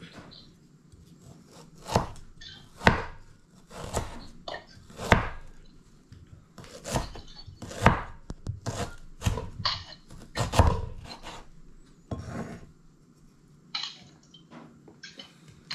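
Kitchen knife chopping unpeeled ginger on a wooden cutting board: irregular sharp knocks of the blade on the board, roughly one a second, thinning out near the end.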